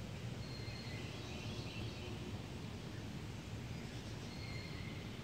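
Faint outdoor ambience: a few short bird chirps over a steady low rumble.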